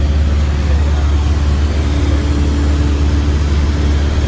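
Cessna light aircraft's engine and propeller heard inside the cabin in cruise flight: a loud, steady drone with a deep hum and an even rush of air noise.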